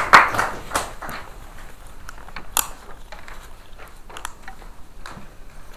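Brief clapping dies away at the start, then scattered light footsteps, knocks and paper handling in a small room, with one sharper click about two and a half seconds in.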